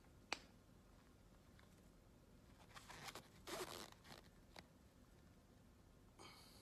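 Near silence, broken by a sharp click just after the start and a brief rustling scrape about halfway through, with a fainter one near the end.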